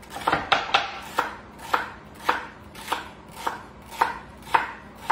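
Ceramic chef's knife chopping celery on a cutting board, an even run of crisp chops about two a second.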